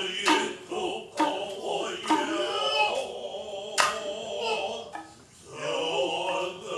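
Noh hayashi ensemble playing: sharp strokes on the kotsuzumi shoulder drum and ōtsuzumi hip drum, separated by the drummers' drawn-out kakegoe calls, over a high sustained nōkan flute line. The sound drops away briefly about five seconds in.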